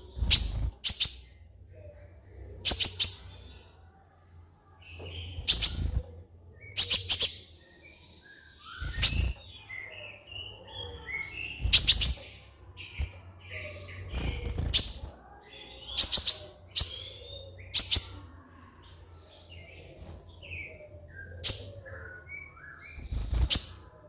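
Kolibri ninja sunbird singing: loud, sharp, very high chirps every second or two, often in quick pairs, with softer twittering notes in between.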